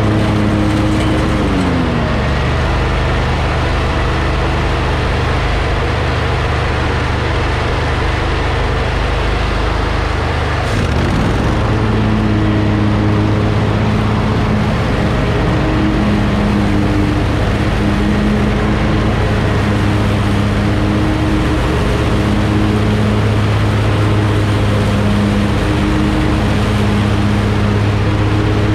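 2020 Hustler FasTrak 54-inch zero-turn mower running steadily at cutting speed, its engine and deck blades going through tall grass. Part of the drone drops in pitch about two seconds in, and from about eleven seconds one tone within it comes and goes every few seconds.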